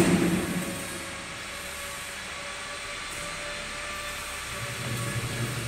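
Steady hum and hiss of running machinery, with a louder noisy clatter fading out in the first half second and a slight low hum swelling near the end.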